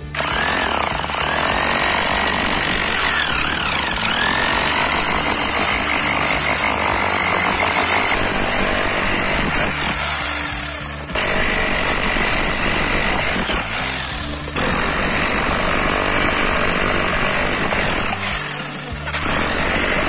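Bosch GBH 5-38 D SDS-max rotary hammer chiseling into stone, its hammer action working again after a repair for a no-impact fault. It runs in long bursts, with brief stops about ten, fourteen and eighteen seconds in.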